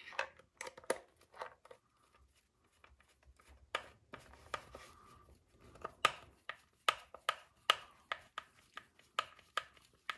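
Hands handling a plastic RC car chassis and its small parts, making irregular sharp clicks and knocks. The clicks come thicker in the second half.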